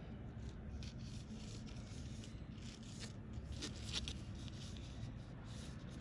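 Fingers handling monofilament fishing line and a weighted hook: faint rubbing and short scratchy rustles, a little louder about four seconds in, over a low steady hum.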